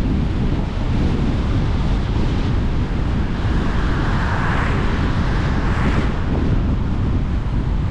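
Car driving on a wet road: a steady low rumble of road and wind noise, with tyre hiss that swells for a couple of seconds around the middle.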